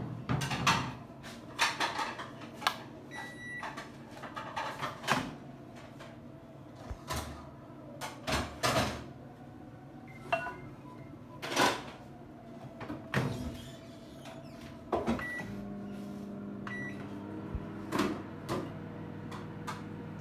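Microwave oven being loaded and started: clicks and knocks as the door is opened and shut and a plate is set on the glass turntable, with a few short keypad beeps. About three-quarters of the way through the oven starts running with a steady hum.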